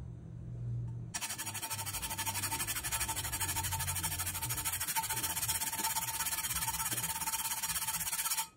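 A cleaning sponge scrubbed fast and hard against the bottom of a frying pan: an even, rapid rasping with a faint squeak, starting about a second in and cutting off abruptly near the end. The scrubbing is an attempt to lift baked-on grease stains from the pan's underside.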